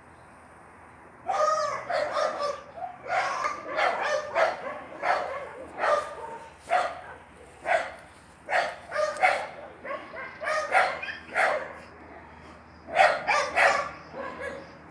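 A dog barking over and over, in single barks and short runs, starting about a second in and pausing briefly shortly before the end.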